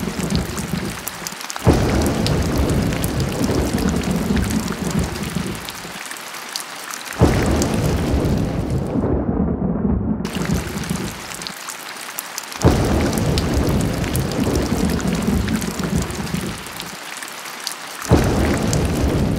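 Heavy rain with rolling thunder: steady rain hiss under a low rumble that sets in sharply and slowly fades, four times at even intervals about five and a half seconds apart. The repeats are so alike that this is a looped rain-and-thunder recording.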